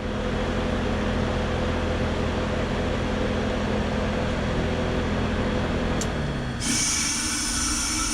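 Trane XB13 heat pump outdoor unit running with a steady hum from its reciprocating compressor and fan. About six seconds in there is a click, the hum falls in pitch, and a sudden loud hiss of refrigerant starts: the reversing valve shifting the unit into defrost.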